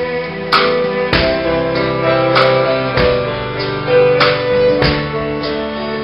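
Live instrumental music: a fiddle plays the melody in long bowed notes that slide between pitches, over accompaniment with a steady beat about every 0.6 seconds.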